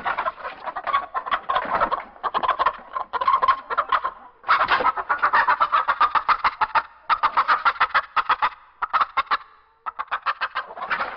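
Rapid chicken clucking and cackling in bursts a second or two long, with short breaks between them and no beat behind it.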